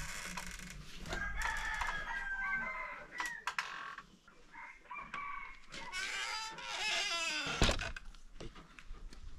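Rooster crowing, with a sharp knock about seven and a half seconds in.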